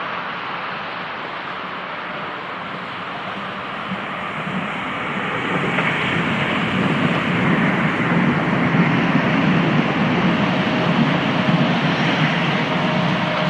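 DB class 425 electric multiple unit running along the track, its rumble growing louder about five seconds in as it comes closer, with a faint steady whine in the second half.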